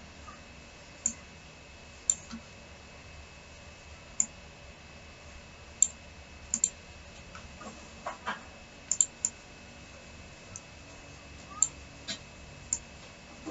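Computer mouse clicking: about fifteen sharp single clicks at irregular intervals, some in quick pairs, over a faint steady high-pitched whine.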